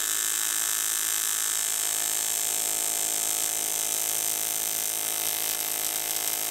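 AC TIG welding arc on cast aluminium, a steady electric buzz that holds even, as a hole in a motorcycle footrest bracket is filled with weld.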